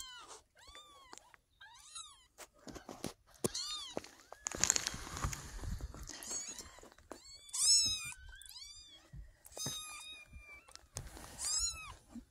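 Young kittens mewing over and over, short high arching cries one after another. Rustling of fabric as a hand reaches in among them, about four to six seconds in.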